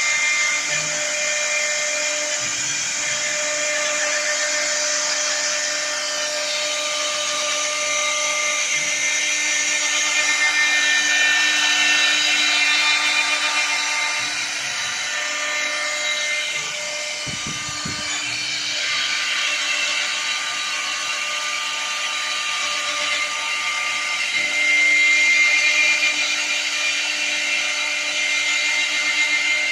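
Router spindle of a two-axis CNC wood copy-turning lathe running with a steady high whine as it cuts the spinning wooden blanks, with a continuous hiss of wood being milled into turned spindles. A brief low knock comes about halfway through.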